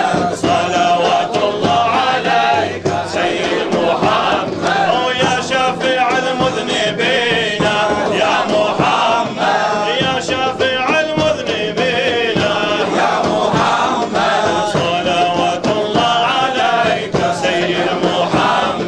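Sufi devotional chanting: male voices singing a dhikr litany through a microphone, with wavering held notes.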